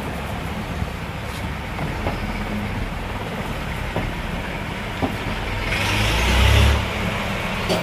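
Steady low rumbling background noise with a louder hissing swell about six seconds in, and a few light clicks from the fan's motor body being handled.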